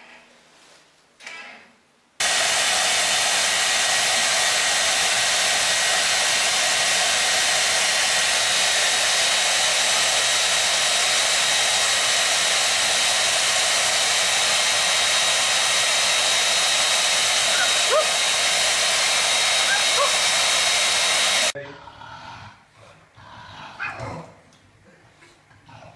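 Handheld electric hair dryer running steadily, a loud even rush of air with a faint steady whine; it starts about two seconds in and cuts off suddenly near the end.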